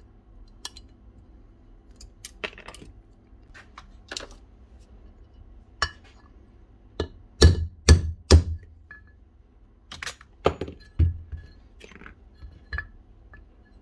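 Small metal clicks and clinks of circlip pliers and loose parts, then a claw hammer knocking on the aluminium gearbox housing of a Bosch rotary hammer during disassembly: three hard knocks in quick succession a little past halfway, then a few lighter ones.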